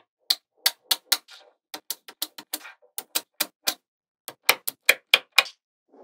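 Small magnetic balls clicking sharply as they snap together onto a block of magnetic balls, in quick irregular runs of clicks with a short pause about two-thirds of the way through.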